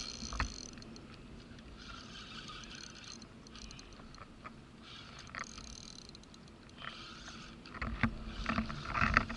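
Fishing reel being cranked in several short spells of whirring while a hooked fish pulls on the bent rod, with a few knocks of handling on the kayak near the end.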